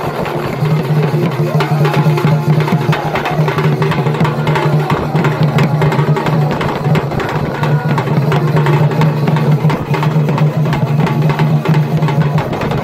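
Live Chhau dance accompaniment: barrel drums beaten in a fast, dense rhythm, over a steady low hum.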